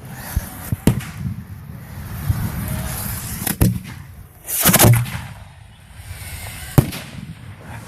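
Aerial firework shells going off. There are single sharp bangs about a second in, around three and a half seconds and near seven seconds, and a longer, louder burst of reports around five seconds.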